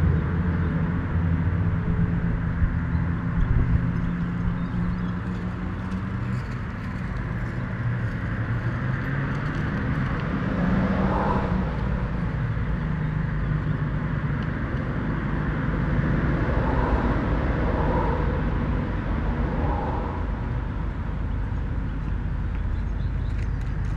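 Steady low rumble of a running motor vehicle, with a few short faint higher sounds in the second half.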